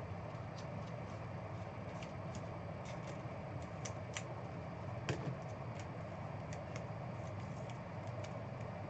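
Trading cards being handled: faint scattered clicks and light rustling over a steady low room hum, with one slightly louder click about five seconds in.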